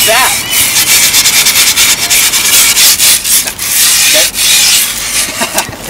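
Quick, repeated rasping strokes of a tool scraped hard along the edge of freshly laid griptape on a skateboard deck, scoring the edge so the overhang can be trimmed off.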